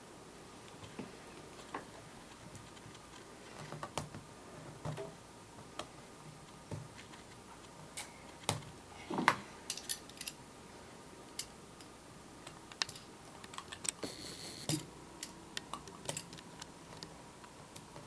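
Irregular light clicks and taps of fingers and fingernails working on a laptop's plastic display assembly, lifting a taped-down screen cable. The loudest click comes about nine seconds in.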